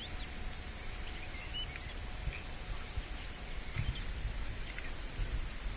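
Outdoor ambience: wind rumbling unevenly on the microphone, with a few faint bird chirps.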